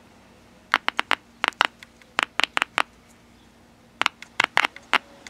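The radio's small 2¾-inch, 12-ohm permanent-magnet speaker pops with sharp clicks as a test lead is tapped on and off its terminal, in quick bunches of three to five. Each click shows the speaker coil and cone are working.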